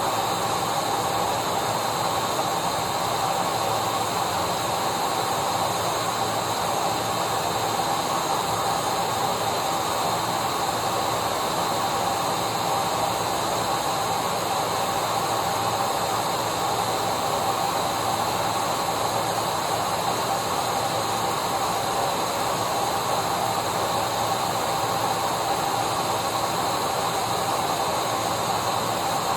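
Vacuum cleaner running steadily: an even rush of air with a fixed motor whine over it, unchanging throughout.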